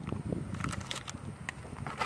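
A cardboard hair-dye box and the bottles in it being handled close to the microphone: a low rumble of handling noise with a few light taps and knocks about a second in.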